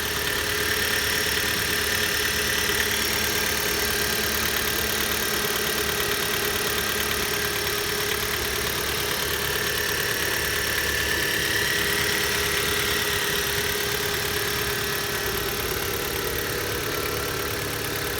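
Hyundai/Kia G4FC 1.6-litre inline-four petrol engine idling steadily from a cold start, with the ticking of its fuel injectors and light knocks whose cause the owner cannot place.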